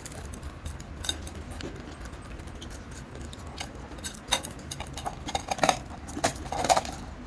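Black ghost-pepper potato crisps crunched and chewed close to the microphone: irregular crisp cracks and crackles, growing louder and busier in the second half.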